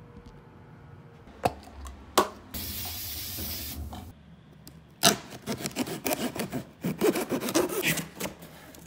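A new phone's packaging being opened by hand: two sharp clicks, a brief hiss, then several seconds of rubbing and scraping.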